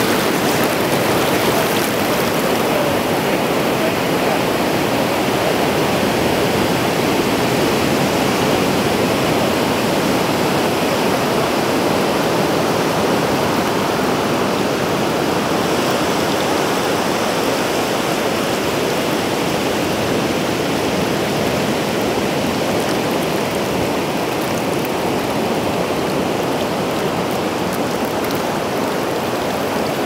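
Shallow water rushing steadily over sand where it runs into the ocean, a constant even wash of flowing water.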